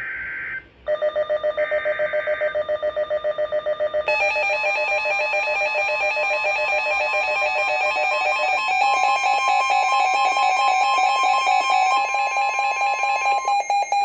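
NOAA Weather Radio severe thunderstorm warning alert, as received on a Midland weather radio. It opens with two short buzzing SAME digital header bursts. Over them the radio's own alarm beeps rapidly, and from about four seconds in the steady NOAA warning alarm tone sounds under the beeping until near the end.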